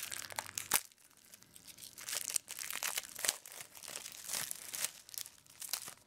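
Clear plastic shrink wrap crinkling and tearing in irregular crackles as it is peeled by hand off a wrapped stack of trading-card packs.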